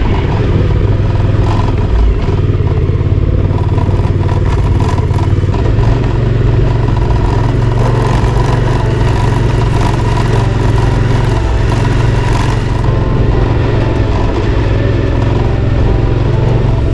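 Suzuki V-Strom's V-twin engine running at steady low revs on a climb, with rattling and clatter as the bike rolls over a rough gravel track.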